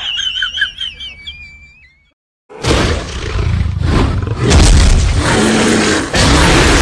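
Edited-in sound effects: a high, wavering squeaky warble for about two seconds, then, after a brief cut to silence, a loud noisy rumble with heavy low end.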